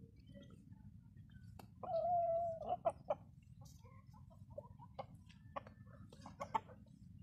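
Chickens calling: one drawn-out, steady call of about a second, followed by scattered short clucks.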